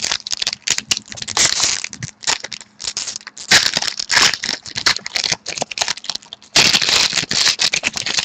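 Trading card pack wrappers being handled, torn open and crinkled, with irregular rustling and crackling that grows louder about three and a half seconds in and again near the end.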